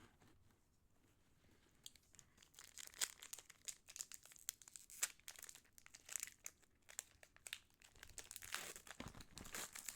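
Foil Pokémon booster pack wrapper being torn open and crinkled: a run of sharp, papery crackles starting about two seconds in.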